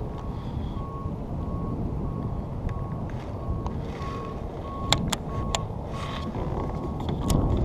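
Wind buffeting the action-camera microphone over open water, a steady low rumble, with a faint short electronic beep repeating about twice a second throughout. A few sharp clicks come about five seconds in, and again near the end.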